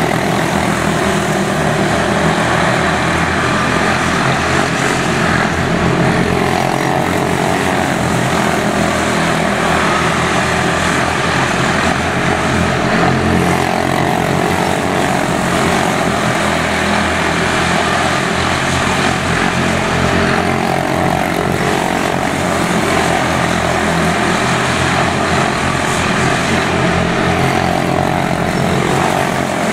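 Quarter midget race cars' small single-cylinder Briggs & Stratton Animal engines running hard in a race, a continuous buzzing drone whose pitch wavers up and down as the cars go round the track.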